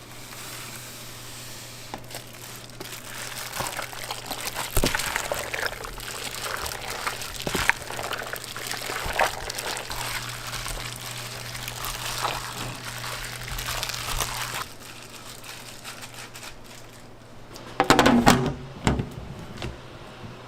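Wet kitchen food-prep sounds, liquid pouring and sloshing with small clicks and crinkles, over a steady low hum. A few louder knocks come near the end.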